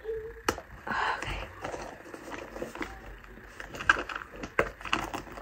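Handling noise from items being unpacked: soft rustling with several sharp clicks and knocks, the loudest about half a second in and near four seconds in.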